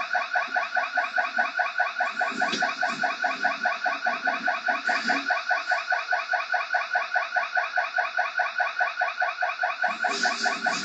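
Electronic alarm siren sounding continuously with a fast, even warble. A few duller knocks come through underneath.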